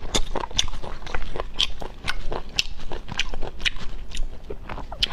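Close-up eating of cooked snails: sucking the meat from the shells with wet lip smacks and slurps, and small clicks of the shells, several short sounds a second.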